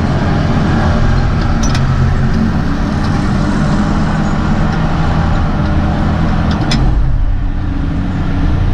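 Diesel engine of a Caterpillar 615C elevating scraper running steadily while the machine works, heard from inside its cab, with two sharp clicks. About seven seconds in, the higher rattle and hiss fall away and the low engine note comes to the fore.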